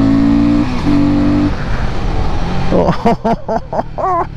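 Royal Enfield Guerrilla 450's single-cylinder engine running while the bike is ridden, its pitch easing down slightly in the first moment and picking up again briefly about a second in. A voice is heard near the end.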